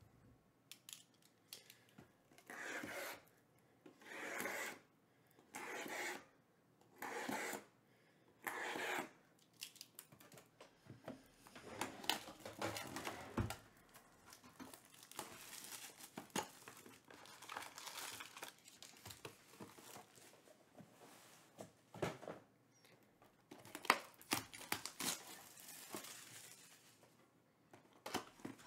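Sealed cardboard trading-card box being handled and opened: first five evenly spaced rustling swishes, then plastic wrap crinkling and tearing with scattered clicks and taps of cardboard.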